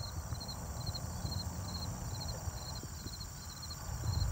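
Wind rumbling on the microphone in uneven gusts, over insects chirping in a steady, high, pulsing rhythm of two to three chirps a second.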